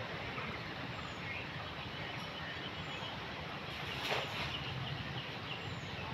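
Steady outdoor background noise: a low rumble under an even hiss, with a few faint, high bird chirps and a brief louder crackle about four seconds in.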